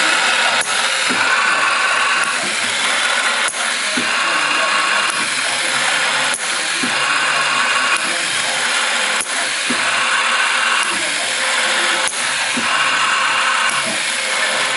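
Twin-spindle pneumatic auto riveting machine running through its cycles: a steady mechanical whirring hiss from the riveting spindles, with a sharp click about every three seconds.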